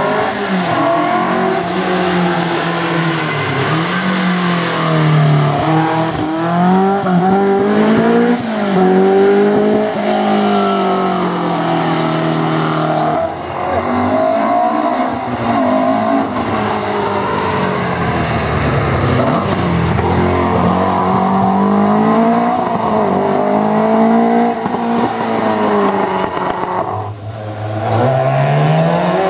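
Historic rally cars driven hard on a stage: engines revving up and dropping back again and again as the drivers shift gears and brake for corners, loud throughout, with short lulls about 13 and 27 seconds in.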